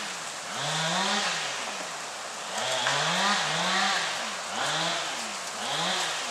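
Chainsaw engine revving up and down over and over, about six surges, its pitch rising and falling with each one, as in cutting.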